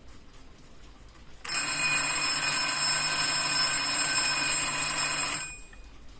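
Vintage Tokyo Tokei tulip alarm clock's alarm ringing loudly and steadily for about four seconds, then cutting off abruptly. The clock ticks faintly before and after the ring.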